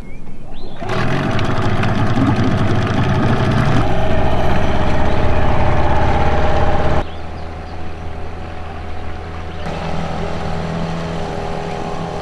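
Yamaha 15-horsepower two-stroke outboard motor running as it drives a small boat across the water. It comes in abruptly about a second in, is loudest in the middle, then drops suddenly in level and changes character about two-thirds of the way through and again a little later.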